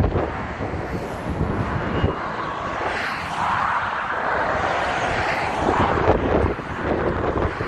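Wind buffeting the microphone in gusts, over a steady rushing noise that swells for a few seconds midway.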